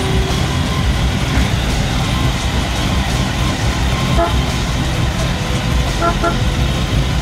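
Engines of slow-rolling lowrider cars rumbling steadily, with voices in the crowd. Short horn toots come about four seconds in and twice more about six seconds in.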